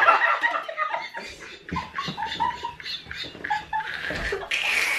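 Several people laughing hard together in short, broken bursts, with a breathy burst of laughter near the end.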